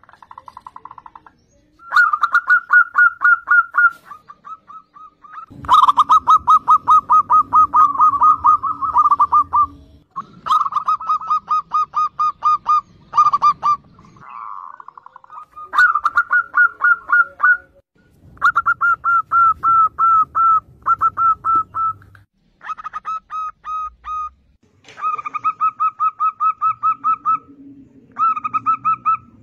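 Zebra doves (perkutut) singing: bout after bout of rapid, pulsing coos, each run lasting a few seconds with short pauses between.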